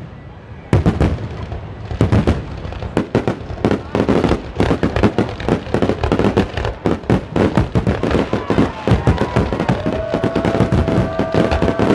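Aerial fireworks bursting in a rapid barrage: a brief lull, then about a second in bangs and crackles come thick and fast without let-up.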